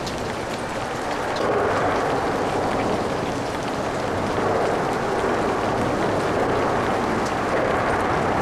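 Steady light rain mixed with freeway traffic on a wet bridge: a continuous hiss of rain and tyres on wet road, with traffic noise swelling and easing every few seconds and the odd raindrop tick.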